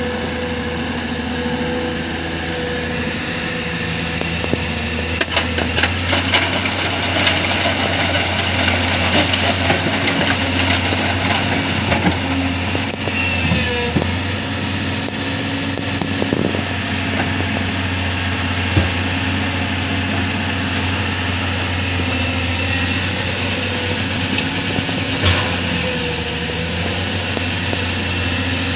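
Excavator's diesel engine running steadily with a constant low hum, with scattered knocks and scrapes in the first half, typical of the bucket working rock.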